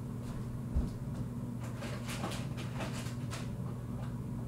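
Someone rummaging for a packet out of view: a thump about a second in, then a run of light clicks and rustles, over a steady low hum.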